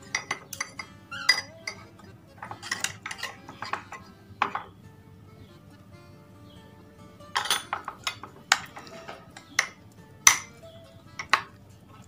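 A metal spoon clinking and scraping against a ceramic mug while stirring pasta with sauce and cheese. The clinks come irregularly, in clusters, with a pause of a few seconds midway.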